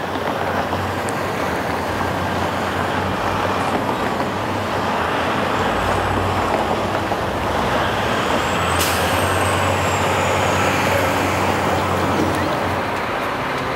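Street traffic on a busy city avenue: vehicles running past with a steady engine hum, and a brief high squeal with a sharp click about nine seconds in.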